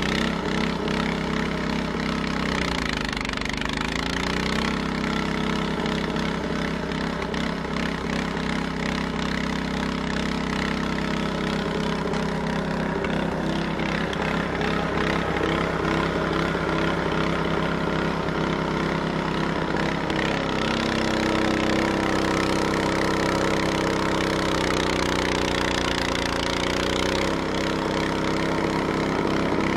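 Large Honda snowblower's engine running steadily while blowing snow. Its pitch dips and recovers twice, a few seconds in and near the end.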